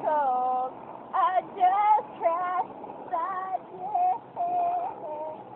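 A woman singing unaccompanied: a run of short phrases of held, wavering notes with brief breaks between them.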